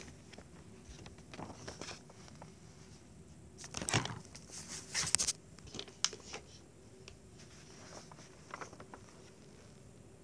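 A sheet of lined notebook paper rustling and crinkling as it is handled, loudest for a second or so about four seconds in, with a few light clicks after.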